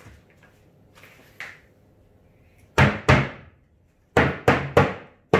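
Nails being driven into a plywood speaker cabinet: two sharp wooden knocks a little over halfway in, then four more in quick succession near the end.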